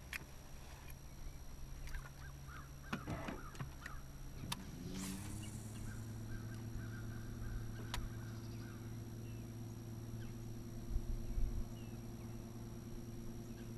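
Bow-mounted electric trolling motor humming steadily. About five seconds in it rises in pitch as it is turned up, holds there, then stops near the end. A few sharp clicks are heard over it.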